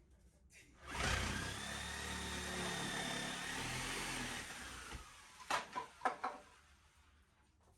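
A power drill runs steadily for about three and a half seconds, then a few sharp knocks follow.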